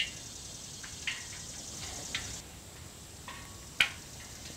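A few light metallic clinks and taps as steel angle braces and bolts are fitted to the ladder brackets of an all-metal tripod deer stand, the sharpest one near the end.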